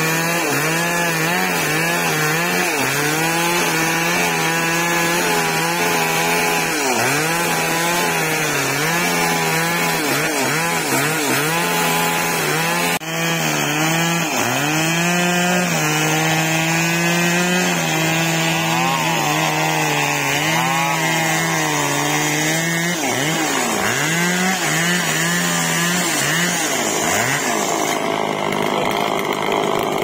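Two-stroke gas chainsaw running at high revs while cutting through the base of a tree trunk. The engine pitch keeps dipping and recovering as the chain bites into the wood, with a brief break about halfway through.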